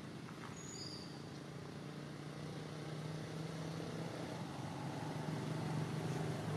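A motor vehicle's engine running with a steady hum, growing louder toward the end as it draws nearer.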